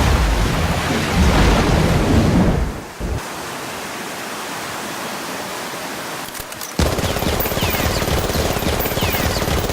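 Wind buffeting the microphone over surf noise, a rough crackling rumble; it drops sharply about three seconds in and comes back loud and sudden near seven seconds.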